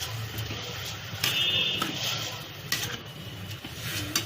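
Washed basmati rice being stirred into hot oil and spice paste in a pot: a ladle scraping and knocking against the pot about three times over a light sizzle, with a steady low hum underneath.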